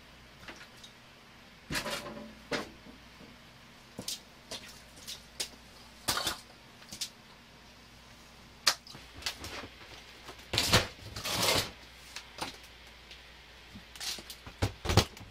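Irregular knocks, clunks and scrapes of things being moved about on a concrete floor: a wooden board shifted, bricks picked up, a metal case carried. The busiest clatter comes about ten to twelve seconds in, over a faint low hum.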